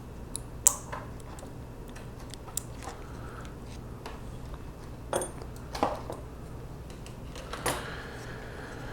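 A few scattered small clicks and taps from handling a little plastic keychain flashlight and its batteries, over a faint steady low hum.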